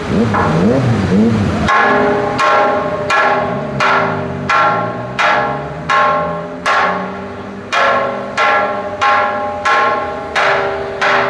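Heavy machinery on a street drilling site striking steel, about three ringing metallic clangs every two seconds in a steady rhythm. Before the clanging starts, in the first second and a half, a machine's pitch wavers up and down.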